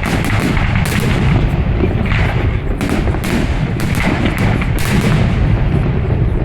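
Fireworks display: aerial shells bursting in a rapid, irregular series of loud bangs over a continuous low rumble.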